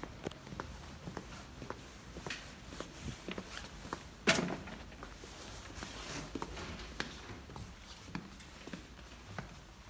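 Footsteps on a hard terrazzo floor, a string of irregular light taps, with one loud knock about four seconds in.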